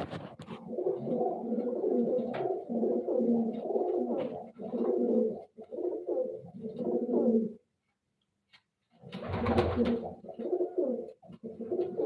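Domestic pigeon cooing: a run of low, repeated coos, broken by a pause of about a second and a half, then starting again.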